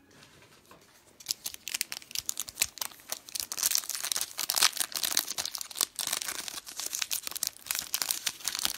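Clear plastic wrapping on a pack of trading cards crinkling and tearing as it is picked open by hand, starting about a second in.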